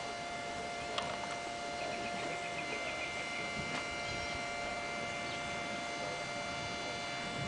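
Steady hum made of several fixed tones over a faint hiss, with a few faint short chirps about two to three seconds in.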